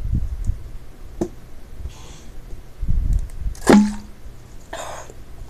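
Someone drinking from a plastic soda bottle: low bumps of handling and swallowing, a sharp crack a little past halfway that is the loudest sound, then a short breathy exhale.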